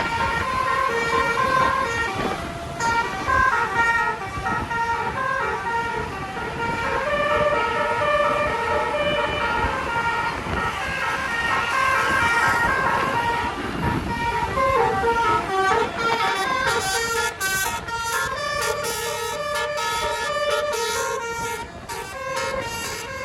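Bus telolet horn, a set of electric multi-tone air horns, playing a fast melody of changing notes. A sweep of lower sound falls away about two-thirds of the way through.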